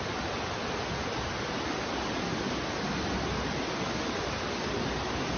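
Muddy floodwater rushing through a street, a steady, even rushing noise that swells slightly toward the end.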